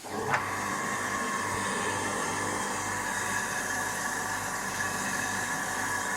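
Kitchen food waste disposer switched on, starting with a short click and spin-up, then its motor running with a steady, even hum. It runs normally on its freshly replaced upper shaft bearing and seal.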